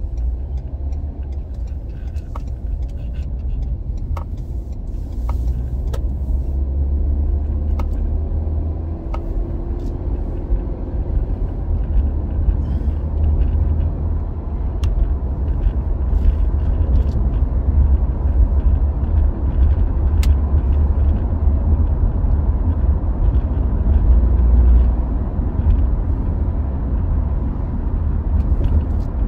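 Steady low rumble of a car's engine and tyres heard from inside the cabin while driving, growing a little louder as the car picks up speed, with a few faint ticks in the first ten seconds.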